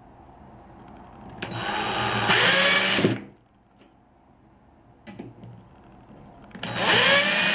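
Black & Decker Smart Select cordless drill driving screws into plastic drywall anchors through a metal hanging rail, in two runs of about two seconds each, the motor's whine rising as it spins up.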